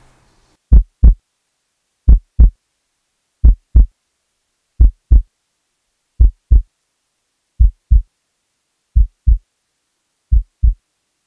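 Heartbeat sound effect: slow double thumps in a lub-dub pattern, about one pair every second and a half, with silence in between. The thumps grow duller toward the end.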